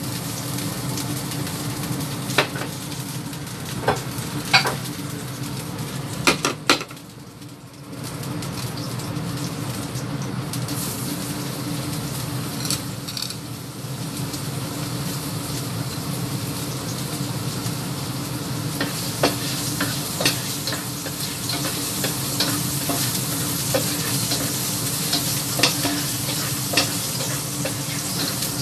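Oil sizzling in a wok with sliced aromatics frying in it, a steady hiss. Sharp metal clinks and scrapes of a spatula against the wok come several times, mostly in the second half.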